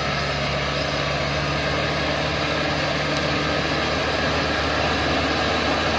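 Dongfeng Trường Giang truck's diesel engine running steadily at low revs as the truck crawls up a steep, muddy dirt track.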